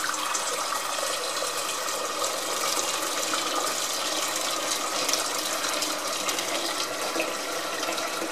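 Kitchen tap running steadily into a metal cooking pot in a stainless-steel sink, filling it with fresh water.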